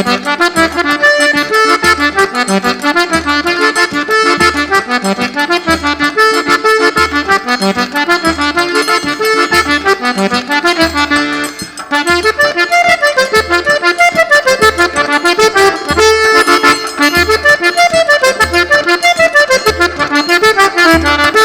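Eight-bass button accordion (fole de oito baixos) playing a lively tune, backed by a zabumba bass drum beating about twice a second and a steadily ticking triangle. The playing breaks off briefly a little past halfway, then carries on.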